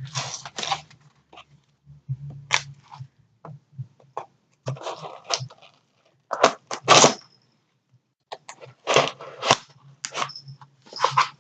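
A box being handled and worked at by hand in an attempt to open it: irregular scraping, crinkling and sharp clicks in short spurts, loudest about two thirds of the way in.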